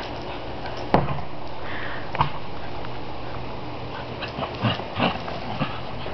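Two dogs playing rough on grass: short scuffles and dog noises, clustered near the end, over a steady background hiss. A sharp knock about a second in is the loudest sound.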